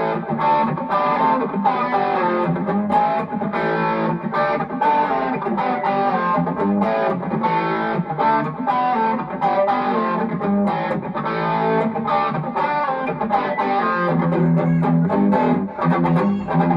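Epiphone Flying V electric guitar through a Dumble-style Amplified Nation Wonderland Overdrive amp on its overdrive channel, playing a crunchy rock riff of quickly picked notes. Heavier low notes come in from about two-thirds of the way through.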